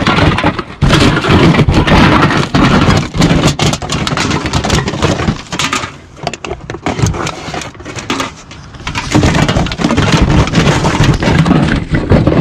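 Empty plastic bottles, aluminium cans and glass bottles clattering and crinkling against each other as a gloved hand rummages through a plastic recycling bin, a dense run of knocks and clinks.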